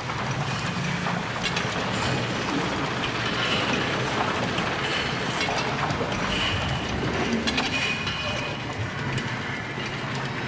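Big Thunder Mountain mine-train coaster cars rattling along the track, with steady clattering, scattered clacks and brief high wheel squeals a few times.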